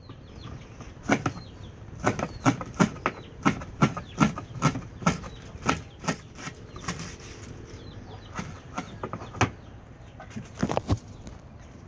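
A series of sharp, irregular knocks and clicks, about two or three a second, thinning out after about six seconds and returning near the end.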